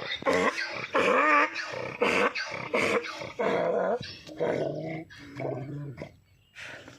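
Donkey braying: a loud run of hee-haw calls, about two a second, that turns into lower, quieter calls after about four seconds and dies away.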